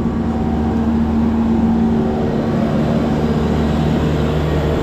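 Twin 350 hp outboard engines running at a steady speed with the boat under way: an even engine hum that does not change in pitch.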